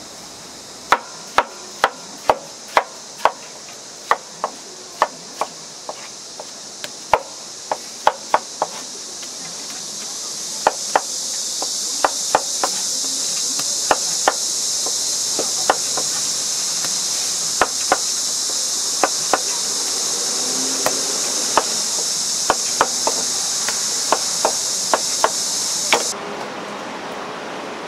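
Knife chopping fruit on a cutting board: sharp knocks about two a second at first, then at an uneven pace, over a steady high-pitched hiss that grows louder and cuts off suddenly near the end.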